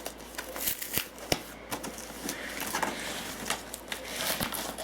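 Hands working at the wrapping of a laptop box, trying to pull it off: scattered taps, scrapes and crinkles.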